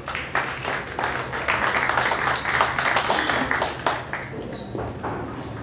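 Audience applauding: a burst of clapping that swells about a second in and dies away after about four seconds.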